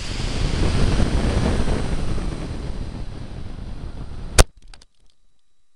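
Onboard sound from a camera in the nosecone of a Big Bertha model rocket: a loud rushing noise of the C6-3 motor's burn and the airstream during the climb, fading over about four seconds. Then a single sharp bang as the motor's ejection charge fires, followed by a few faint clicks and much quieter sound.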